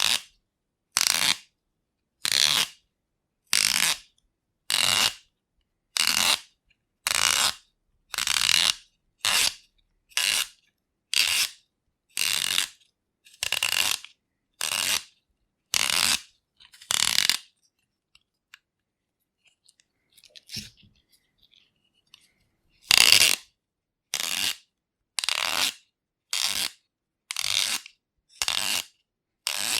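A carrot being turned in a hand-held vegetable sharpener, the blade shaving it in short, regular strokes about once a second. Around two-thirds of the way through the strokes stop for several seconds, with only faint handling noises, then start again.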